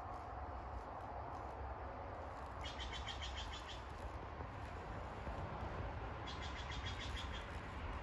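A bird singing a short, rapid trill twice, a few seconds apart, over a steady low rumble.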